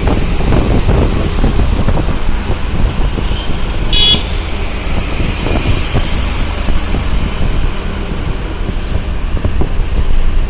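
Road traffic with heavy wind rumble on the microphone, and one short, high-pitched vehicle horn honk about four seconds in.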